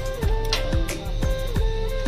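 Background music: a steady beat of deep drum hits that each drop in pitch, under a plucked-string melody.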